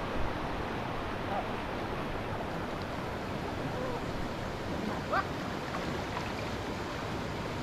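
Swift floodwater of a rain-swollen stream rushing steadily, with a faint short sound about five seconds in.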